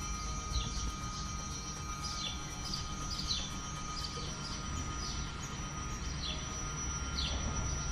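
Small birds chirping, repeated short falling chirps at one or two a second, over a steady low rumble of outdoor background noise.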